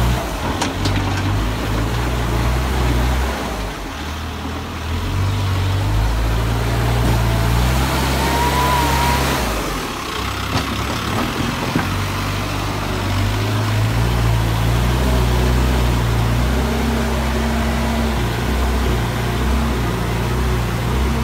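Case backhoe loader's diesel engine running under load as it works the mud, its pitch stepping up and down as the revs change.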